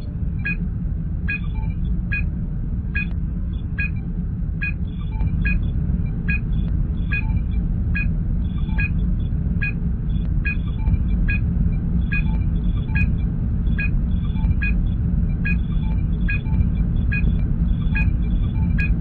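Star Trek starship sound effects: a steady low engine hum with a short sonar-like scanner blip repeating about every 0.8 seconds.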